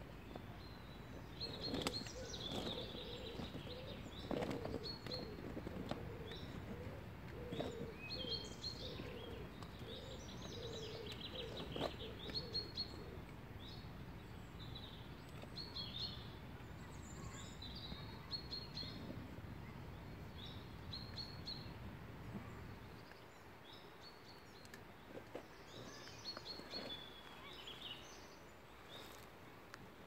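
Woodland birds singing, many short high chirps and trills repeating over a steady low background noise that falls away about three-quarters of the way through.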